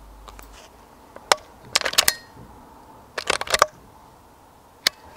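Handling noise from a BSA Super 10 air rifle. A sharp click comes about a second in, then two quick clusters of clicks and rattles, and one last click near the end.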